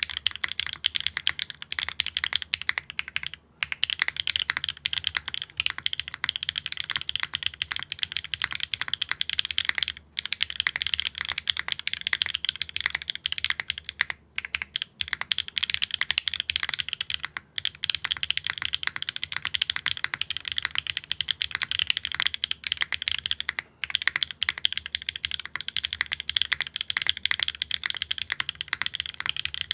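Fast, continuous typing on a Neo65 Core Plus mechanical keyboard fitted with factory-lubed Wingtree tactile switches, a carbon-fibre plate, no foam and GMK keycaps. The keystrokes clack in dense runs broken by a few short pauses. It is a mid-pitched, mid-clack sound test of the switches.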